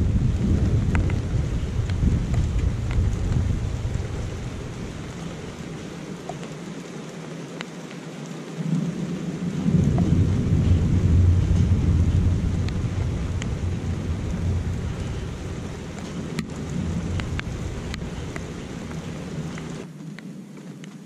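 Thunder rumbling in a rainstorm: a rumble that fades over the first several seconds, then a second roll that swells about nine seconds in and slowly dies away. Under it, steady rain with scattered drips.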